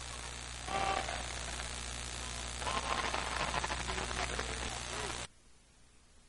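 Basketball game crowd noise over a steady electrical hum and hiss from a broadcast recording, swelling louder twice. It cuts off abruptly about five seconds in, leaving only faint hiss.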